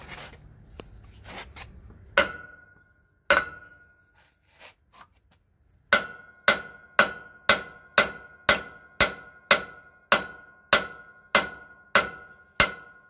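Steel hammer striking a stuck brake anchor pin in a semi truck's brake spider, metal on metal: two blows a couple of seconds in, then a steady run of about two blows a second from about six seconds in, each with a short metallic ring. The pin is seized and will not drive out.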